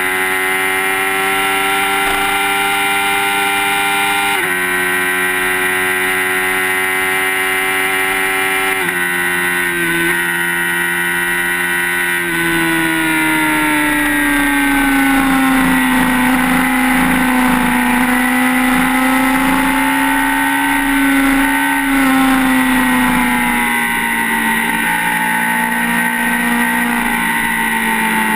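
Sport motorcycle engine running hard at high speed with wind rushing past, heard from the bike itself. Its pitch holds high with two brief breaks, then falls from about twelve seconds in as the rider eases off and settles at a steady lower pitch.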